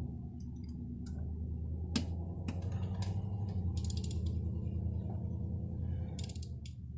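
Ratchet wrench clicking in a few short runs while spark plugs are turned into the cylinder head of a BMW E46 330i, over a steady low hum.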